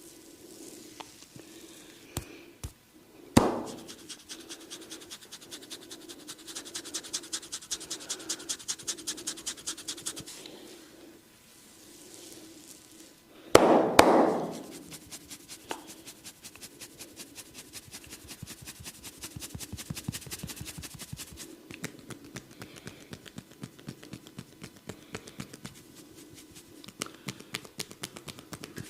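Rapid, rhythmic hand strikes of a barber's percussive head and shoulder massage, several a second, with a few much louder single smacks about three seconds in and near the middle.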